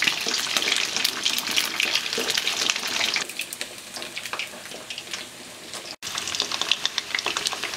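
Pieces of salted fish deep-frying in hot oil in a wok: a dense crackling sizzle that is loudest for about the first three seconds, then settles to a softer crackle. There is a brief break about six seconds in.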